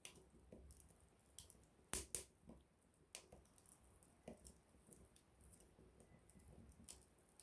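Small wood campfire crackling, with irregular sharp pops and snaps; the loudest pair of pops comes about two seconds in.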